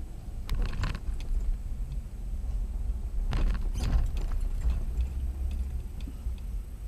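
Low, steady rumble of a car heard from inside its cabin while it drives slowly, with two short clusters of clicks, one about half a second in and one around the middle.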